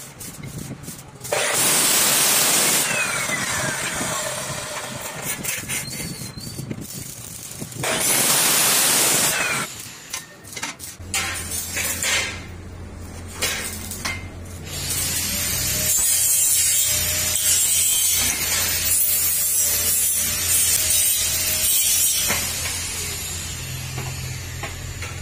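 Abrasive cutoff saw (chop saw) cutting steel square tubing: two cuts, one about a second in and one about eight seconds in, with the blade spinning down between them. In the second half a steady hum carries dense crackling, like arc welding on the steel frame.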